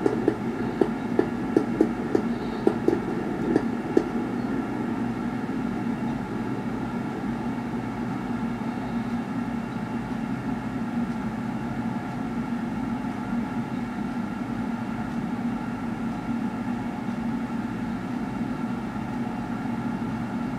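Fireworks bursts on a television broadcast, heard through the TV's speaker: a run of about seven sharp pops and cracks over the first four seconds, then a steady hum and hiss once the bursts stop.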